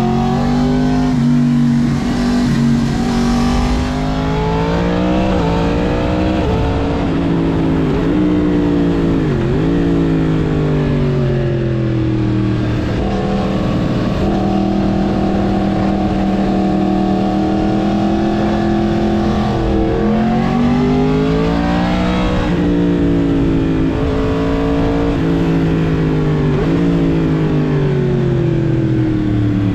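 Yamaha MT-10's crossplane inline-four through a Mivv full exhaust system, revving up and down under riding. Its pitch climbs and drops several times as it accelerates and changes speed, and holds a steady note for several seconds in the middle.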